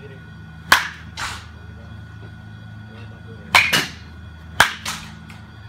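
Baseball bat hitting pitched balls: three sharp cracks, each followed a fraction of a second later by a second, softer hit. The first comes about a second in and the other two close together near the end.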